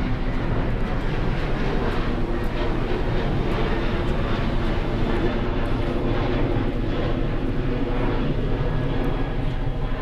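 Jet airliner climbing away after takeoff, its engines giving a steady, even noise.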